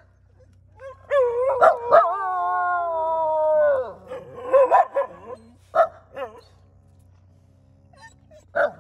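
Street dogs barking a few times, with one long howl about two seconds in that drops in pitch at its end. The dogs are on guard against a rival pack.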